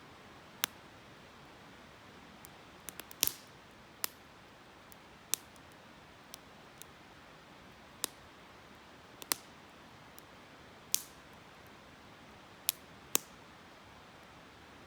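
Campfire wood crackling: sharp, irregular pops, about a dozen spread unevenly, over a steady soft hiss.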